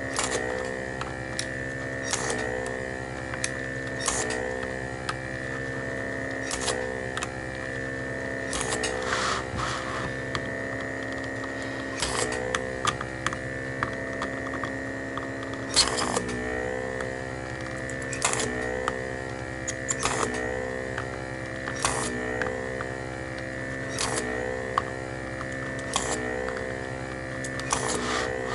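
Homemade vacuum desoldering iron's pump running steadily, with a short sharp click of suction about every two seconds as solder joints are sucked clear. The pump's pitch dips briefly with each draw.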